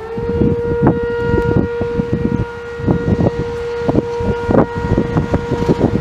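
Sentry 10V outdoor warning siren reaching full pitch just after the start and then holding one steady tone, with wind gusting on the microphone.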